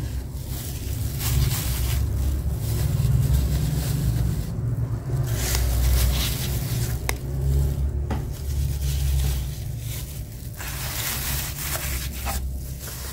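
A thin plastic food-handling glove rustles and crinkles, with light scrapes and taps, as mochi in paper cups are set into a cardboard box. A steady low rumble runs underneath.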